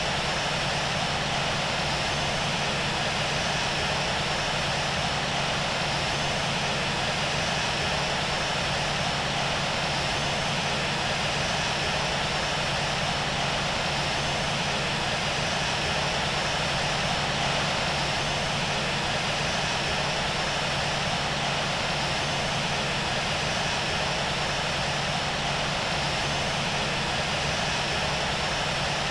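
Boeing 737-700 with CFM56-7B jet engines running: a steady, unchanging noise with a low hum underneath.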